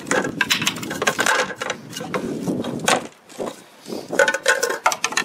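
Hard plastic catch-basin parts being handled: the round outlet adapters knock, click and scrape against the plastic basin in a run of irregular clacks.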